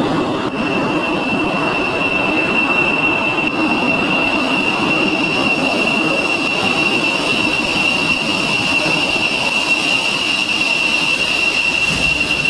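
F-16 fighter jet engines running at taxi power: a steady high whine over a constant rushing roar.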